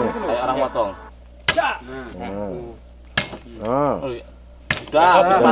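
Three sharp chopping strikes of a steel oil-palm harvesting blade into a wooden pole, spaced about a second and a half apart, over a steady high insect drone.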